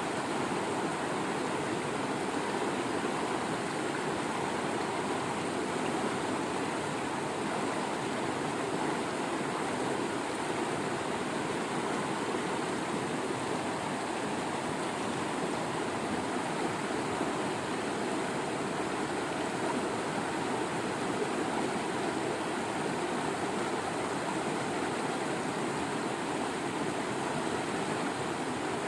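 Waterfall: water pouring and rushing steadily, an even, unbroken roar of running water.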